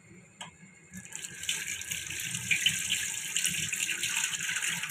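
Cold water pouring in a steady stream over cooked sago pearls in a metal mesh strainer, starting about a second in, rinsing and cooling them.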